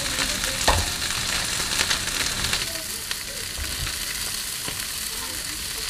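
Head-on shrimp sizzling and crackling in freshly added butter in a frying pan, stirred with a spatula. A steady hiss with many small pops and a few sharper clicks.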